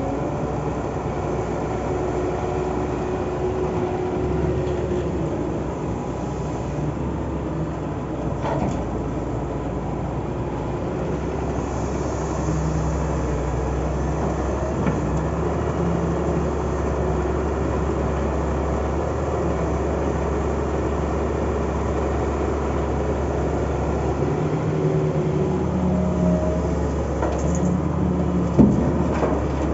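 Diesel engine of heavy earthmoving machinery running steadily as it works, its note shifting slightly, with a sharp knock near the end.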